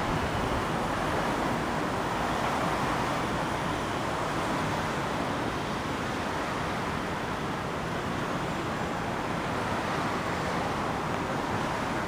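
Steady traffic noise from cars driving slowly past on a curving road, an even rush with no distinct engine or horn sounds.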